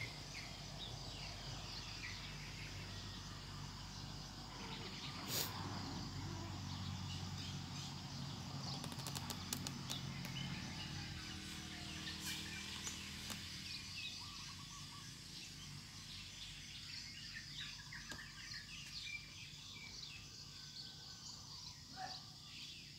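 Faint outdoor ambience of birds chirping over a steady background. A low rumble fades out about halfway through, and a sharp click comes about five seconds in, with a few smaller clicks a few seconds later.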